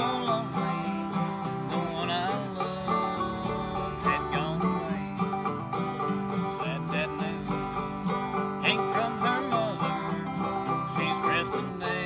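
Acoustic guitar and clawhammer banjo playing a bluegrass tune together, with no pauses.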